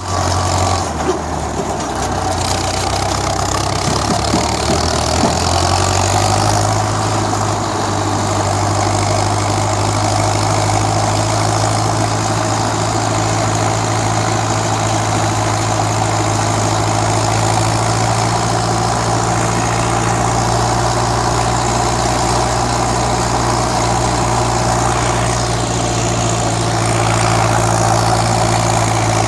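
Steyr 768 tractor's diesel engine running at idle. Its beat is uneven for the first few seconds, then settles into a steady idle about six seconds in.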